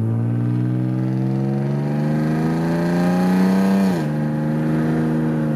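BMW E36 M3's inline-six engine accelerating under load: its note climbs steadily for about four seconds, drops suddenly at a gear change, holds briefly, then falls away near the end as the throttle comes off.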